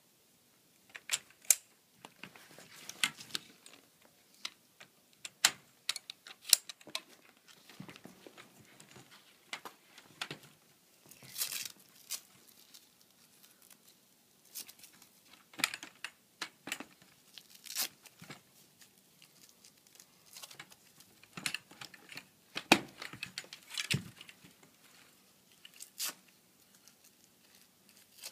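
Folding-kayak frame being assembled by hand: an irregular string of sharp clicks and knocks as frame tubes and ribs are fitted and snapped together, with a longer rustling stretch around the middle.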